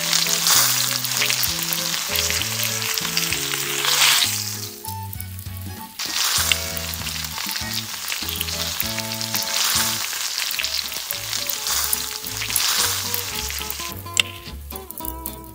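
Chocolate dorayaki batter sizzling as it fries in a small metal wok over an open flame. The loud hiss eases off about four seconds in, picks up again about two seconds later, and dies away near the end.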